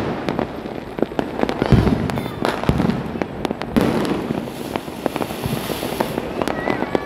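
Firecrackers going off all around in an irregular string of sharp cracks and pops.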